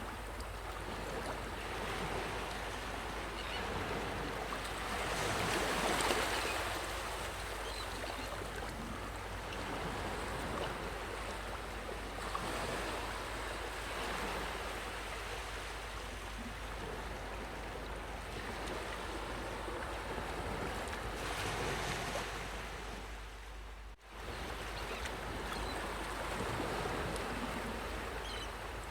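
Sea waves washing up on a sandy beach: a steady rushing that swells and fades as each wave comes in, loudest about six seconds in. The sound cuts out for an instant about five seconds before the end.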